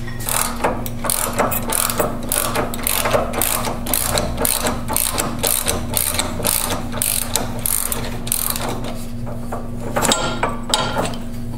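Hand ratchet clicking in quick back-and-forth strokes, a few clicks a second, as it is worked on a pitman arm puller on a power steering gearbox, with a louder flurry of clicks near the end. A steady low hum runs underneath.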